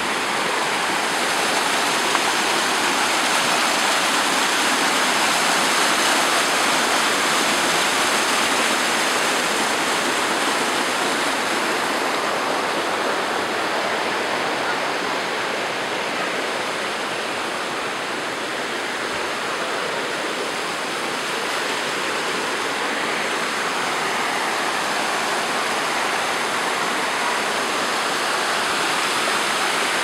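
Waterfall water cascading down over rocks: a steady, even rush.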